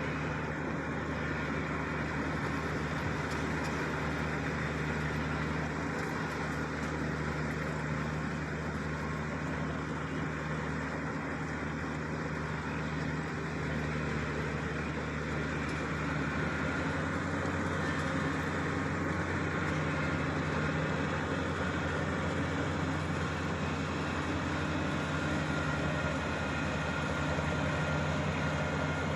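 Kubota DC-35 combine harvester's diesel engine running steadily with a constant drone. The low part of the drone grows a little stronger a little past halfway through.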